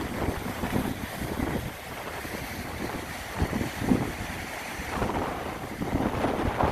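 Sea waves washing onto the shore with wind gusting across the microphone, rising and falling unevenly, with a stronger surge about two thirds of the way in.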